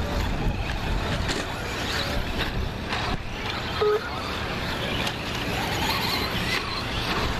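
Radio-controlled 2WD short-course trucks racing on a dirt track, their motors whining up and down as they pass, over a steady low rumble. A short beep sounds about four seconds in.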